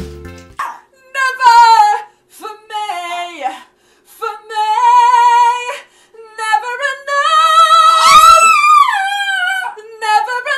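A woman sings a dramatic ballad line in short phrases while the small dog she is holding howls along with her. The dog's howls rise and fall over her voice in the second half.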